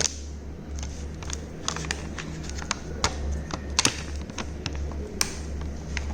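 Irregular sharp clicks and light knocks of small hard parts being handled, over a steady low hum.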